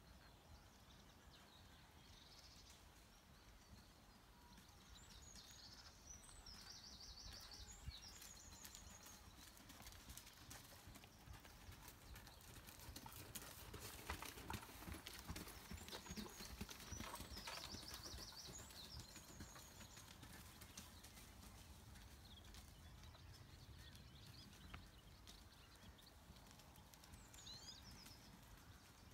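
Faint hoofbeats of a horse moving over a sand arena surface, growing louder towards the middle as the horse passes close by, then fading. A bird sings short trilled phrases twice in the background.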